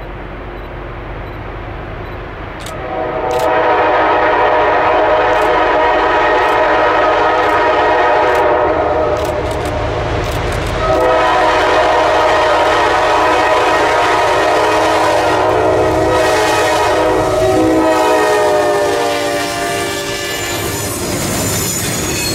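Diesel locomotive air horn sounding the grade-crossing pattern of two long blasts, a short one and a final long one, as the train approaches; the pitch slides down on the last blast as the lead locomotive passes. A low diesel engine rumble and wheels on the rails run underneath.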